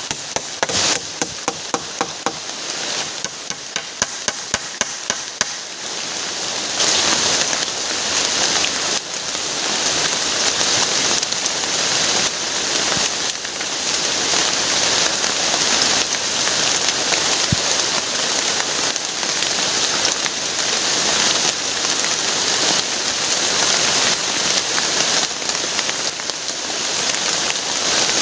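Heavy rain falling steadily. For the first five seconds or so it is broken by a series of hammering knocks, about two a second, from work on a shelter.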